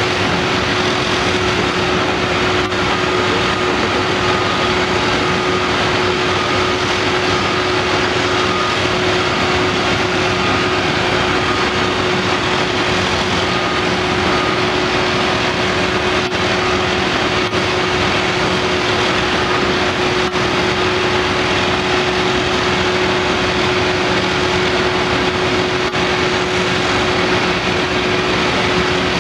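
Cat 345D L hydraulic excavator's diesel engine running steadily under load while it digs, with a constant whine over the engine noise.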